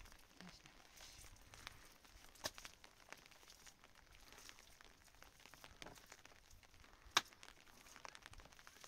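Faint, scattered rustling and small clicks, with one sharp click or knock about seven seconds in.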